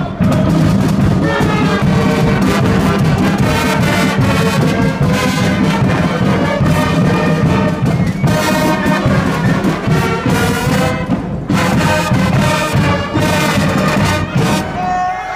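Amateur pep band of trumpets, trombones, saxophones and clarinet playing a fight song loudly together, over a steady low brass line.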